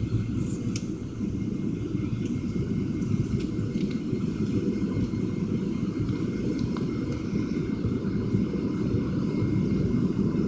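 Steady low cabin roar inside a McDonnell Douglas MD-83 airliner climbing out after takeoff: rushing airflow and its rear-mounted Pratt & Whitney JT8D-200 turbofans at climb power.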